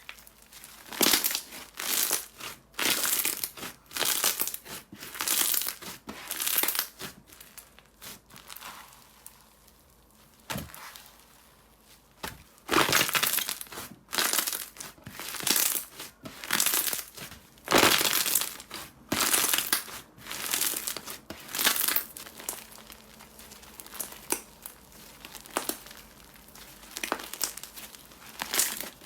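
Slime being squished and pressed by hand in a run of short crisp bursts, roughly one a second, with a pause of a couple of seconds about a third of the way in.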